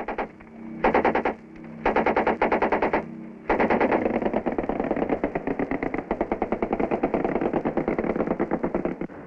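Belt-fed heavy machine gun on a river patrol boat firing in bursts, about ten rounds a second: a few short bursts, then one long burst of about five seconds.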